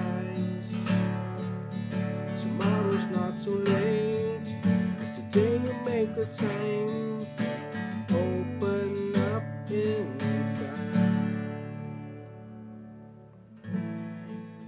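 Acoustic guitar in an alternate tuning, strummed and picked in an instrumental passage. The chords are let ring and fade away from about eleven seconds in, then strumming starts again near the end.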